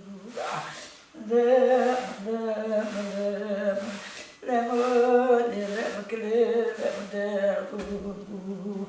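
An elderly woman's voice singing a keening mourning lament (ağıt) in two long, wavering, held phrases.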